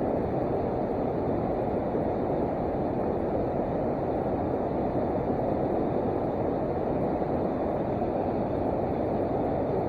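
Steady rushing of a river's flowing water, an even noise with no breaks or changes.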